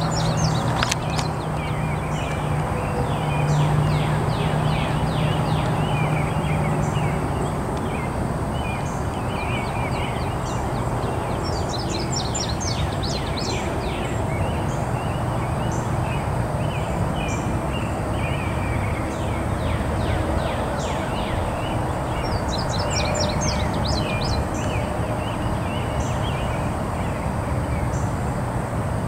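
Small songbirds chirping over a steady low rumble and hum, with two bursts of rapid trilling about a third and three quarters of the way through.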